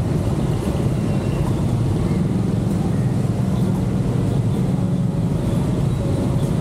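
Car driving on city streets: a steady low drone of engine and road noise with no breaks.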